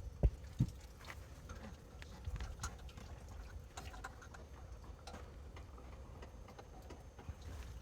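Faint, irregular metallic clicks and ticks of a wrench working the drain plugs on a 5-litre Volvo marine engine, with two sharper knocks about half a second in, while the block and manifolds are being drained of water for winter.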